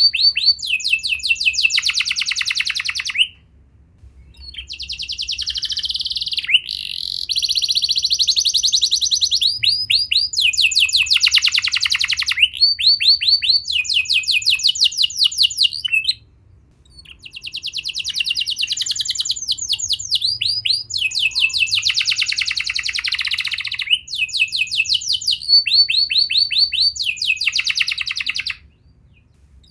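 Canary singing long, loud phrases of rapid trills and rolling repeated notes, with short breaks about four seconds in, around sixteen seconds, and just before the end.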